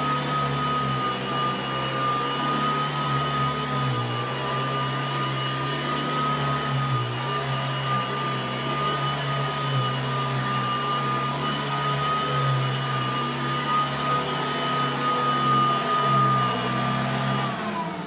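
Vintage upright bag vacuum cleaner running with a steady high motor whine as it is pushed back and forth over carpet. Near the end the whine drops in pitch and fades as the motor winds down.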